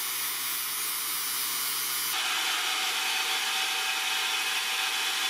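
Angle grinder grinding the edge of a steel sword blade, a steady grinding hiss over a low motor hum. About two seconds in, the sound changes abruptly to another machine cutting the steel, a steady hiss without the hum.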